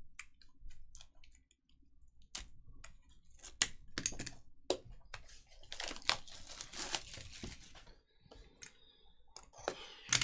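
Plastic shrink wrap being slit with a utility knife and peeled off a cardboard trading-card box. Scattered sharp clicks and taps run through it, with a thick stretch of crinkling and tearing plastic in the middle.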